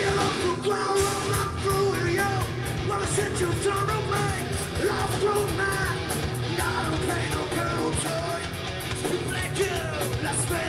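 Live rock band playing loud: electric guitar, bass guitar and drums, with a voice yelling over the music.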